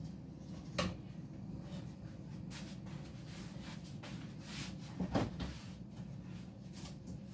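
Kitchen utensils handled and set down on the counter: a sharp knock just under a second in and two or three knocks about five seconds in, with light rustling between, over a steady low hum.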